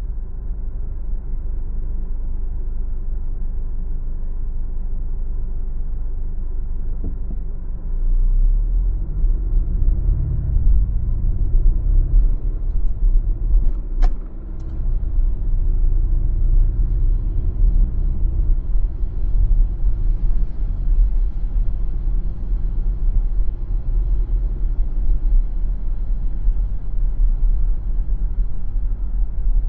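Car driving, heard from the dashcam: steady low road and engine rumble that grows louder about eight seconds in, with a single sharp click about halfway through.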